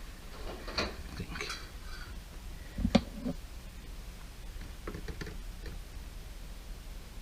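Scattered light clicks, knocks and rustling of dishwasher parts and wiring being handled during reassembly, with one louder knock about three seconds in.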